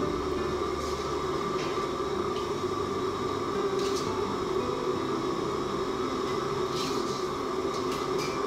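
Steady mechanical roar in the background, with a few light clinks of a ladle against the stainless steel pot.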